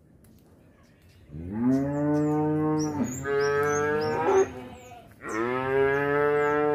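Cattle mooing: three long, drawn-out moos in a row, the first starting a little over a second in. Birds chirp faintly in the background.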